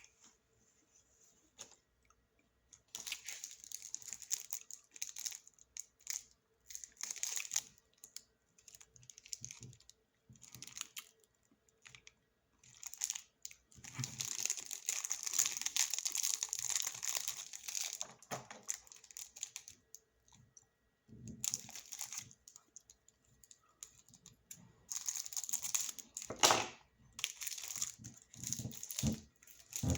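Snack packaging crinkling and rustling as it is handled, in irregular bursts with short quiet gaps, the longest lasting about four seconds in the middle. A few sharp knocks come near the end.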